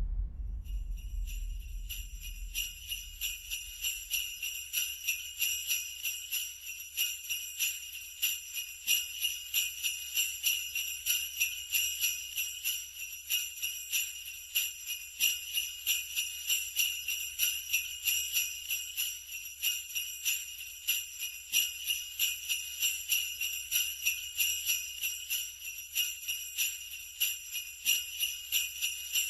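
Sleigh bells shaken in a steady, even rhythm, a bright continuous jingle. It starts about a second in, while a low rumble fades out.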